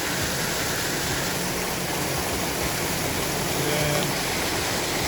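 Waterfall: a steady, even rush of water pouring over the falls.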